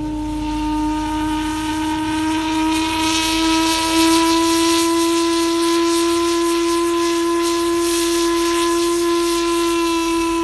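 A paddle steamer's steam whistle blowing one long, loud, unbroken blast with a hiss of steam in it. Its pitch rises slightly over the first few seconds, then holds steady.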